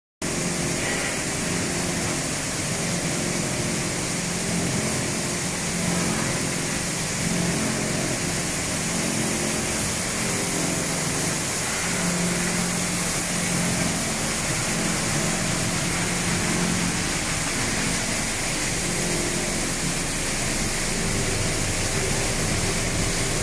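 HDPE/LDPE plastic bottle washing line running: a steady industrial noise of motors and processing machinery with a low hum underneath.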